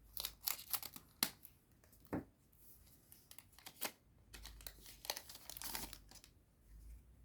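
Digimon Card Game booster pack being torn open, its foil wrapper crinkling, in a run of irregular sharp crackles and rustles.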